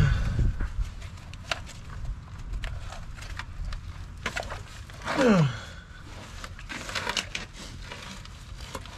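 Irregular clunks, knocks and scrapes of a heavy truck battery being tugged at and shifted in a tractor's cramped battery compartment, with a short falling groan about five seconds in.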